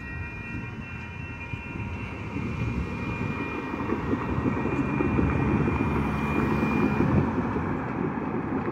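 Road traffic driving over a light-rail level crossing as the gates lift: a steady rumble of tyres and engines that grows louder midway. Faint steady high tones from the crossing signals fade out in the first few seconds.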